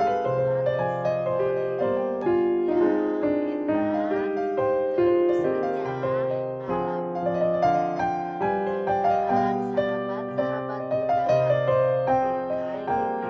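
Background piano music, a melody of single notes over held lower notes.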